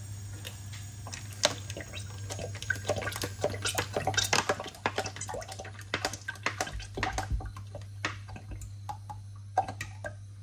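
Small cottage-cheese doughnut balls frying in hot oil in a saucepan: a steady sizzle full of small irregular crackles and pops, over a steady low hum.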